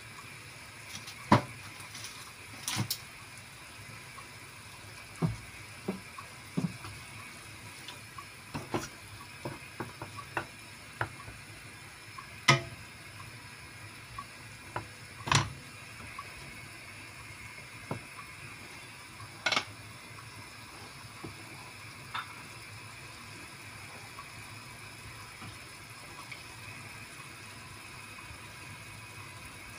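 Shrimp simmering in white wine in a wide pan, a steady faint bubbling hiss, with a wooden spatula stirring and knocking against the pan now and then. The knocks come irregularly, most often in the first twenty seconds.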